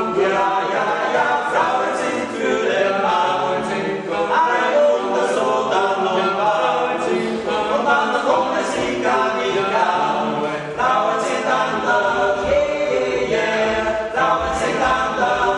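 Men's choir singing a cappella in several-part harmony.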